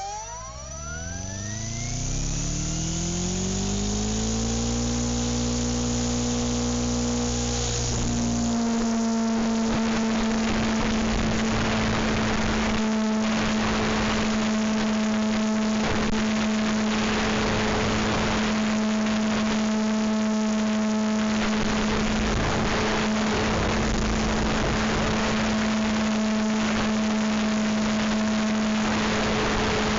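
Goosky E2 RC helicopter spooling up: its motor and rotor whine rise in pitch over the first four or five seconds, shift at about eight seconds, then hold a steady hum with rushing rotor noise.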